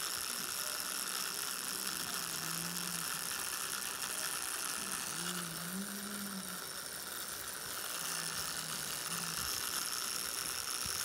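Electric tattoo machine buzzing steadily as it works ink into skin, its sound shifting briefly around the middle when the skin is wiped.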